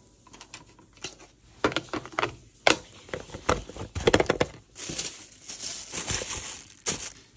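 Plastic lunch containers knocking and clicking as they are set into a foil-lined insulated lunch bag. Then, from about five seconds in, a plastic bag crinkles and rustles as it is stuffed in on top.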